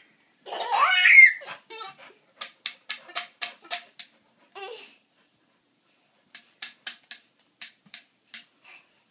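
Toddler laughing: a rising squeal, then a quick run of short breathy ha-ha pulses, about four a second, and a fainter run near the end.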